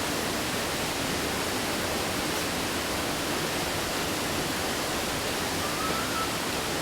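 Steady rushing roar of a waterfall, an unbroken even wash of falling water.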